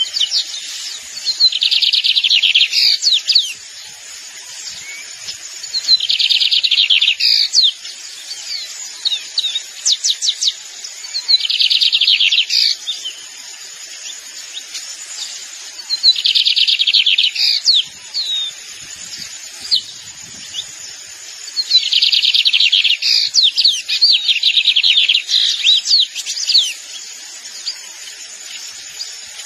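Lined seedeater (Sporophila lineola) singing. It repeats a phrase of a fast, dense trill about a second and a half long roughly every five seconds, with sharp single notes in between.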